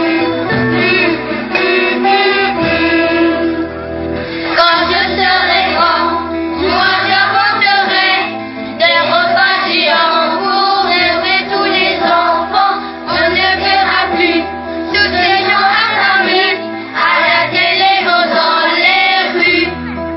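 A song: voices singing a melody over instrumental backing with a steady bass line, in phrases with brief pauses between them.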